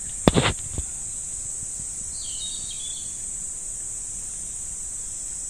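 A quick cluster of sharp knocks about a third of a second in, over a steady high-pitched hiss. A bird chirps briefly a couple of seconds in.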